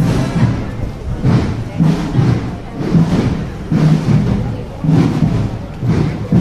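A procession band playing a slow march: low held notes over a steady drum beat, with a strong stroke about once a second and lighter strokes between.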